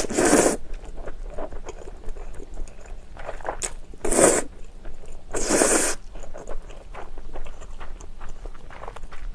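A person slurping cream-sauce spaghetti noodles off a fork: three loud slurps, one at the start, one about four seconds in and one about five and a half seconds in, with close-up wet chewing and lip smacks between them.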